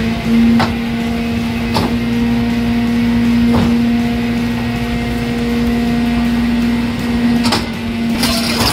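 Garbage truck's hydraulic compactor running: a steady whine from the packer's hydraulics with the truck's engine under load, broken by a few sharp metallic clicks and knocks as the packer panel moves through the hopper.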